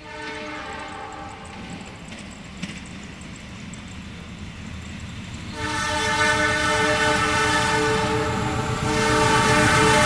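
Diesel passenger train locomotive approaching and sounding its horn: a blast of about two seconds right at the start, then a longer, louder blast from about halfway in that is still going at the end, over the train's running rumble, which grows louder as it nears.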